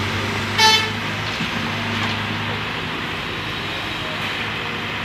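Diesel engines of a working excavator and an idling dump truck running steadily. A short, loud horn toot sounds under a second in.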